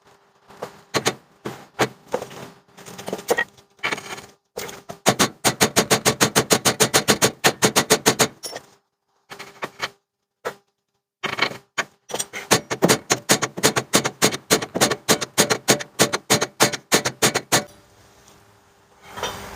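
Hand hammer striking an old steel pin used as a drift to push a spring bushing through on a 1950 Ford F1's front leaf spring. Sharp metal-on-metal blows, a few scattered ones, then two long fast runs of about six a second with a pause between.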